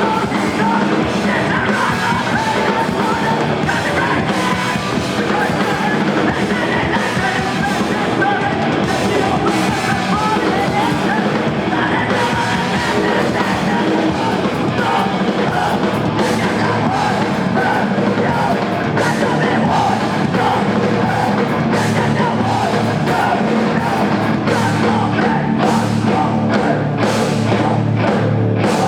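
Live rock band playing loud, with guitars, bass and drums; the low end gets heavier and the drum hits sharper in the last several seconds.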